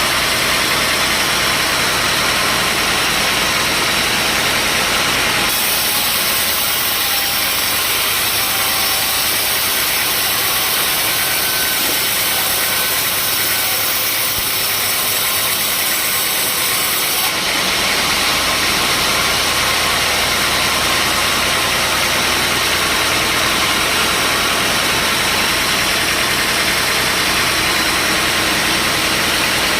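Sawmill machinery running: a steady engine-like drone under dense mechanical hiss. About five seconds in, the sound changes abruptly, the low drone fading and the hiss growing brighter and sharper. It switches back to the deeper drone about seventeen seconds in.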